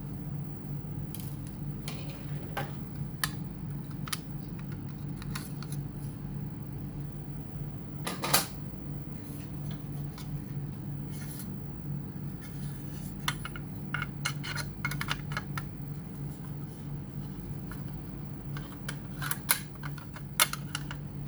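Small clicks and taps of laptop parts and screws being handled during disassembly, over a steady low hum. The sharpest click comes about eight seconds in, and there are rapid runs of clicks past the middle and near the end.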